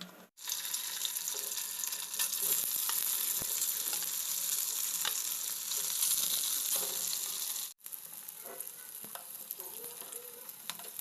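Food sizzling and frying in hot oil in a pan. It is loud and steady at first, cuts off abruptly about eight seconds in, and then goes on more quietly with small crackles and clicks.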